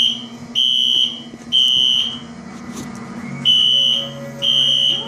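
Building fire alarm sounding a loud, high-pitched beep in groups of three, each beep about half a second long with a longer pause between groups, the temporal-three evacuation pattern. It was set off by thick vape clouds fogging the shop.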